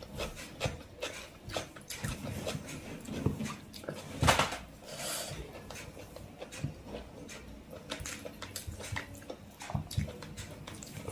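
Hand-eating rice and chicken curry: fingers squishing and mixing wet rice on a plate, with close wet chewing and lip smacks. A run of short clicks and smacks, with one louder noise about four seconds in.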